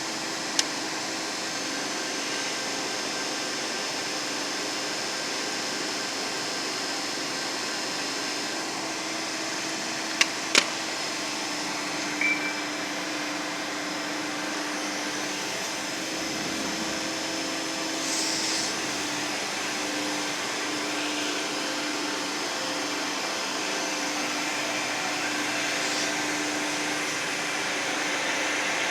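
CNC machine running: a steady mechanical whir with a low hum and a high whine, broken by a few sharp clicks, two of them close together about ten seconds in, and a short high tone soon after.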